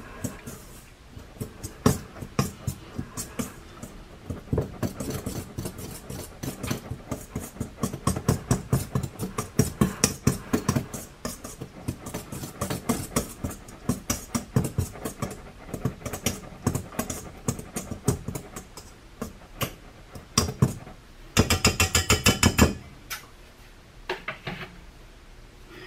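A utensil clinking against a mixing bowl while dry ingredients are stirred by hand: quick, irregular clicks and taps, several a second. A fast rattling run of strikes a little past twenty seconds in is the loudest part.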